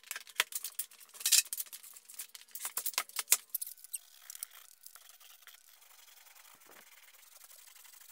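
Paint roller working over drywall: a run of sharp clicks and taps for about the first three and a half seconds, then a faint steady rubbing as the roller spreads paint.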